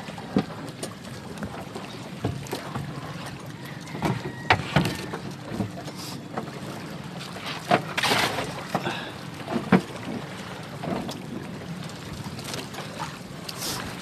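Outrigger boat under way at sea: a steady rush of wind and water with a low hum underneath, broken by a few brief sharp knocks or splashes.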